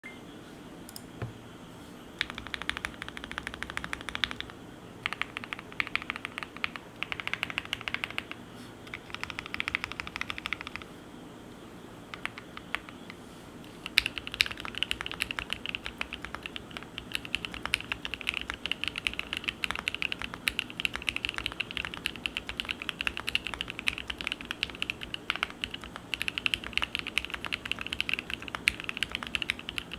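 Typing on a Monsgeek M1 mechanical keyboard (PC plate, no case foam) with lubed and filmed Gateron North Pole V2 switches, their silicone dampeners removed, under Domikey Obsidian keycaps. It starts with a few short bursts of rapid keystrokes and a pause of a few seconds, then continuous fast typing from about halfway through.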